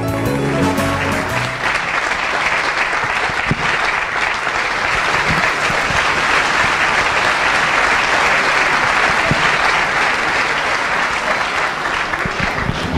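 Audience applauding steadily, beginning as the last notes of the dance music fade out in the first second or so.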